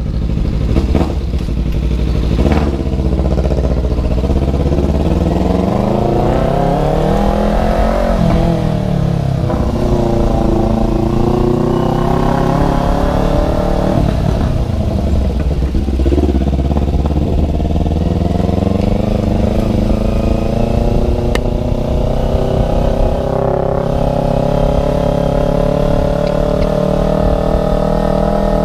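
Kawasaki Ninja 250 Fi parallel-twin engine running with its muffler removed, under way on the road. The revs climb over the first several seconds, fall back about eight seconds in, then hold and rise slowly through the rest.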